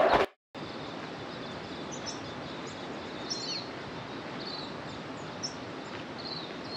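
Small birds chirping, many short high calls scattered over steady outdoor background noise. A brief loud sound and an abrupt cut come at the very start.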